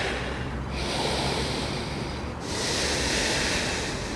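Slow, deep, audible breaths through the throat and nose during a held yoga pose: one long breath fading out under a second in, a quieter gap, then another long breath from about two and a half seconds in.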